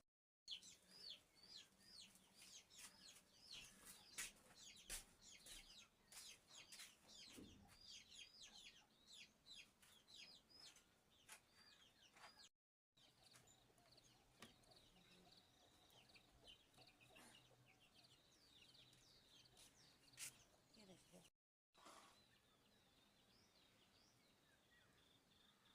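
Faint farmyard birds: chickens clucking and many rapid, high, downward-sliding chirps. The chirps are thick for the first twelve seconds or so and thin out after two abrupt cuts.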